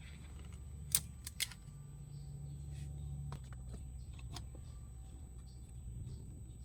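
Small sharp clicks and taps of parts or tools being handled, two louder ones close together about a second in, over a low steady hum.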